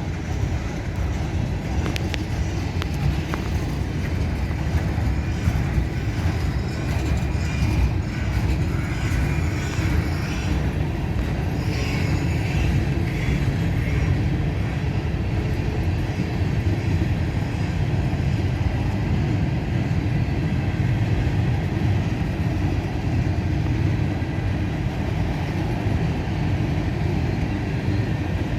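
CSX freight train's cars rolling past slowly at about 10 mph, a steady low rumble of wheels on rail with a few faint clicks and light squeaks.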